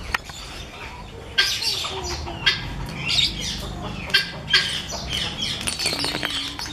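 Helmeted guinea fowl giving short, harsh calls that repeat irregularly, each dropping in pitch, over a low steady background rumble.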